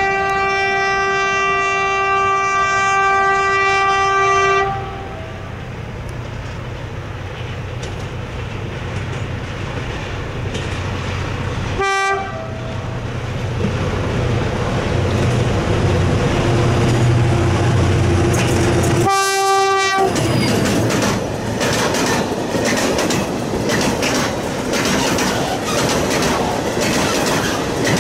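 SM42 diesel-electric shunting locomotive sounding its horn: one long blast of about four and a half seconds, a short toot about twelve seconds in, and a blast of about a second near twenty seconds, over a diesel engine drone that grows as it approaches. In the last third, open freight wagons pass close by with a steady clickety-clack of wheels over rail joints.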